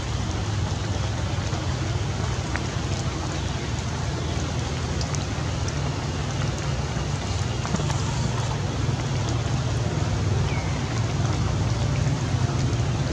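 Steady rain falling, an even hiss with scattered small drop ticks, over a steady low rumble.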